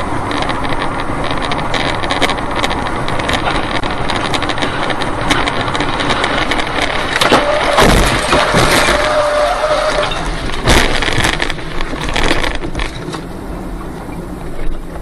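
Car driving at speed on a highway with steady road and wind noise and scattered clicks. About seven to eight seconds in, debris slams into the windshield in a cluster of heavy bangs, with a steady tone sounding for about two seconds, and a second loud bang follows about three seconds later. Near the end the noise drops back to quieter driving.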